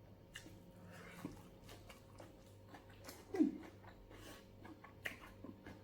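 A person eating: faint chewing and small mouth clicks, with a short falling vocal murmur about three and a half seconds in.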